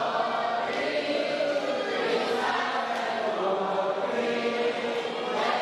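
A group of people singing a song together, led by a woman's voice over a microphone.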